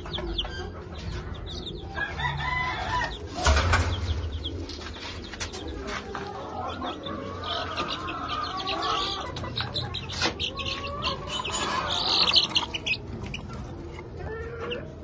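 Chickens clucking and chicks peeping in many short calls, with a loud rustling burst about three and a half seconds in.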